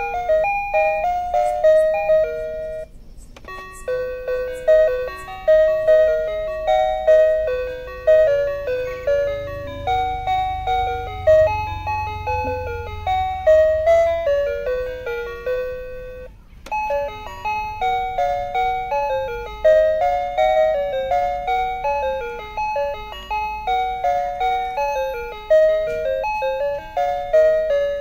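Background music: a bright melody of short, quick notes with a steady beat, breaking off briefly twice.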